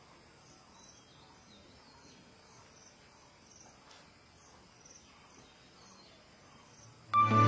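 Faint insect chirping, soft high chirps repeating about twice a second over quiet background noise. Just before the end, music starts suddenly with a deep bass note and bright ringing tones.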